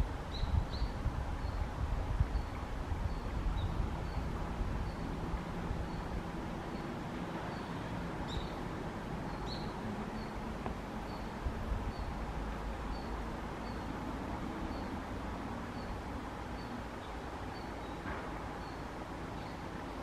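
Outdoor ambience with a low rumble that eases after the first few seconds. Under it, a steady high tick repeats about twice a second, and a few short high chirps come near the start and again about eight and nine seconds in.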